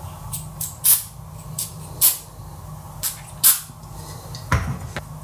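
Aerosol spray can giving about seven short hissing squirts, three of them louder, then a single knock near the end.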